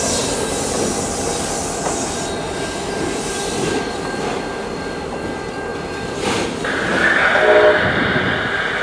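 Commuter train moving away along the track, its wheels running on the rails with a thin, steady wheel squeal. About seven seconds in, the squeal grows louder.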